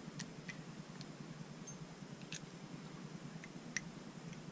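Scattered faint metallic clicks and taps of a T-handle chamfering tool against a stainless Ruger GP100 revolver cylinder as it is lifted out of one chamber and set into the next. The clearest click comes nearly four seconds in, over a low steady hum.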